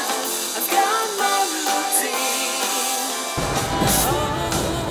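Background music with a steady beat and a gliding melody; the bass comes in suddenly about three and a half seconds in.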